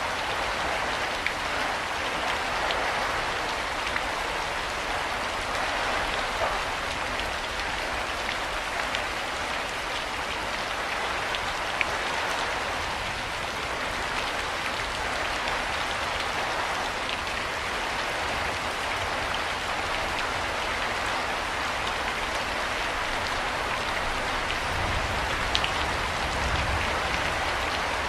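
Steady rain falling: a dense, even hiss with occasional sharper drop ticks. A low rumble swells briefly near the end.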